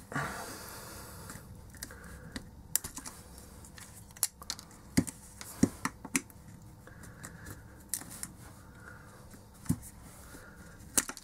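Small flat screwdriver scraping and prying under the glued plastic dome of an Ikea LED bulb: a scrape lasting about a second and a half at the start, then scattered sharp clicks and cracks as the plastic and heavy glue are picked away.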